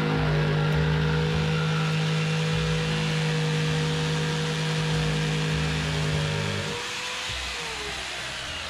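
Toro electric jigsaw cutting a slot through a cabin panel, its motor running at a steady pitch. About seven seconds in, the cutting stops and the motor winds down with a falling whine.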